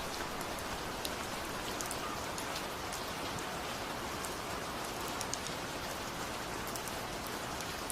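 Steady rain falling, an even hiss with sharp single drop ticks scattered through it.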